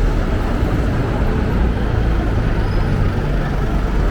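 Steady street traffic noise: motor vehicles passing on a city street, with a strong, even low rumble.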